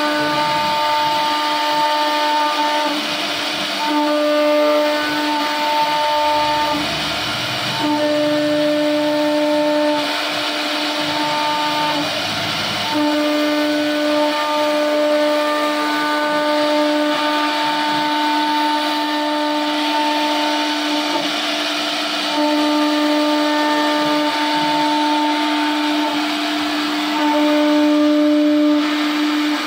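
Silver Ring Champion SR-1325 CNC router's spindle motor whining steadily as its cutter carves a relief pattern into a wooden board. The whine's upper tones drop out and return every few seconds as the cutter moves through the cut, over a steady hiss of wood being cut.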